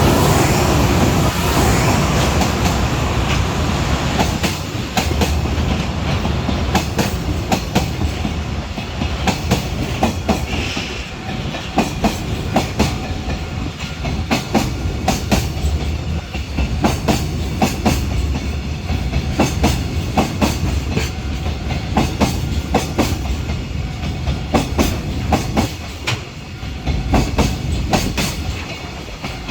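Container freight train running past, its wagon wheels clacking over rail joints in quick, uneven groups. It is loudest in the first couple of seconds, where the EH500 electric locomotive's rumble is heaviest.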